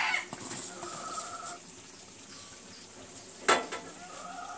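Quiet cooking sounds from a pan of biryani rice on the stove as fried onions are scattered over it, with one sharp knock about three and a half seconds in. Faint animal calls in the background, once early and once near the end.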